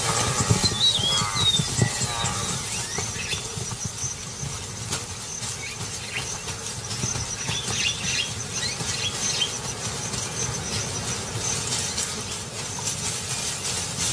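Wildebeest herd passing, with grunting calls in the first couple of seconds and high squealing calls about a second in, over a steady hiss of ambience; short high chirps come around eight seconds in.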